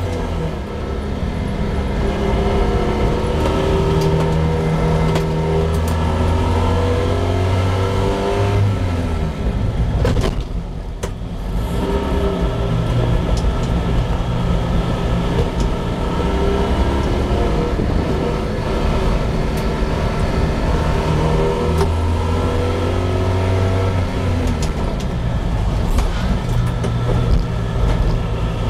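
1971 Honda N600's air-cooled 599 cc two-cylinder engine, heard from inside the cabin, revving up and falling back again and again as the car is driven hard, with a brief lift off the throttle about ten seconds in.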